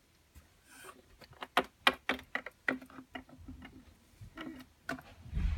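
Small plastic toys clicking and tapping on a hard toy-house floor in an uneven run of sharp clicks, with a dull thump near the end.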